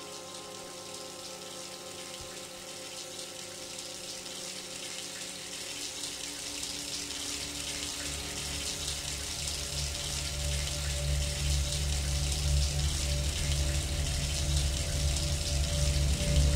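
Shower water running in a steady hiss. A low, swelling drone rises under it from about halfway through, and the whole sound grows steadily louder.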